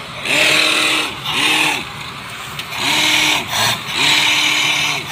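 Tube-well drilling rig working in repeated bursts, about four in all, each a loud hiss with a whine that rises and then falls, as water spray blows up out of the borehole.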